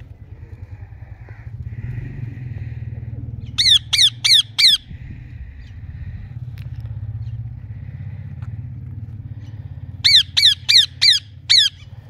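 Indian ringneck parakeets squawking: loud, harsh calls that each fall in pitch, four in quick succession about four seconds in and five more near the end. A steady low hum runs underneath.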